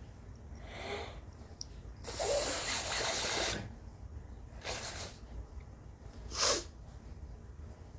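A person with a sore, irritated nose blowing and breathing hard through the nose in a series of separate bursts. There is a short one about a second in, a long blow of about a second and a half at two seconds, another short one near five seconds, and a brief sharp burst, the loudest, about six and a half seconds in.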